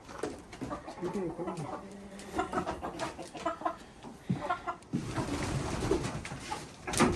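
Chickens clucking in short, soft calls, with a brief knock near the end.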